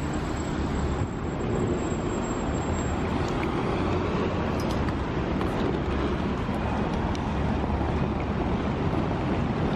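Steady city street traffic noise: cars running and passing through a downtown intersection, an even rumble with no single sound standing out.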